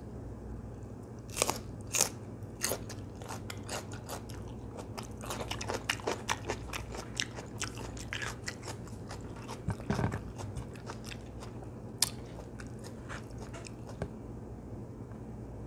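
Crisp bites and chewing of a raw cucumber spear: a few sharp crunches, then a dense run of crunching chews that slows toward the end.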